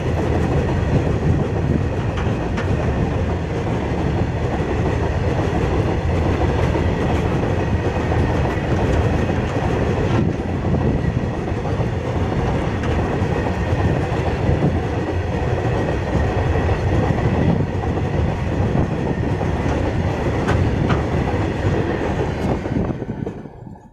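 Loaded BOXN open freight wagons passing close at speed, their steel wheels rumbling and clattering on the rails in a steady, loud wash of noise. The sound fades out near the end.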